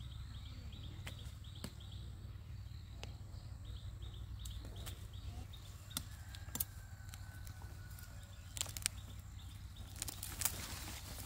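Outdoor rural ambience: a steady low rumble under two runs of rapid high chirps, with scattered sharp clicks and knocks that come thicker near the end.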